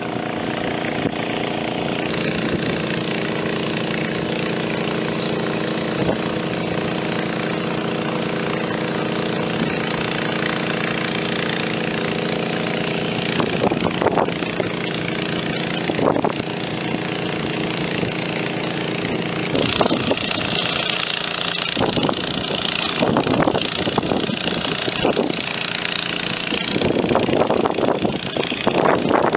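Small engine-driven water pump running steadily while filling a water-filled AquaDam flood barrier. A few knocks come partway through, and a hiss joins near the end.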